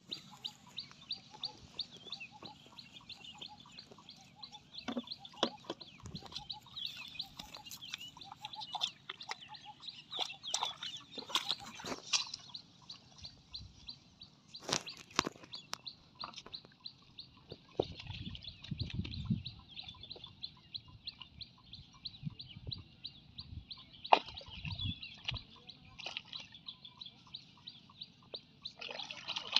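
Rural outdoor ambience: birds chirping over a steady, fast-pulsing high chirr, with scattered sharp knocks.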